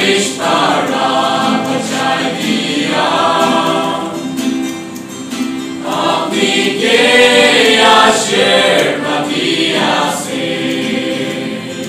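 Mixed choir of young men and women singing a hymn, with a guitar accompanying.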